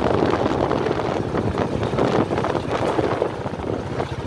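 Vehicle engine running steadily as it drives over a rough dirt track, with the body knocking and rattling over the bumps.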